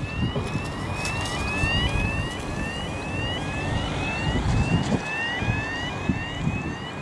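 Fairchild A-10 Thunderbolt II jets' twin General Electric TF34 turbofans running during the takeoff roll: a low rumbling jet noise, with wind gusting on the microphone. Over it, a thin rising whistle repeats about twice a second.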